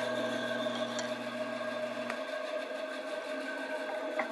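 Delta bandsaw running free with no wood in the cut, a steady hum, its freshly soldered blade running smoothly despite a slight lump at the joint. About two seconds in, the deepest part of the hum drops away.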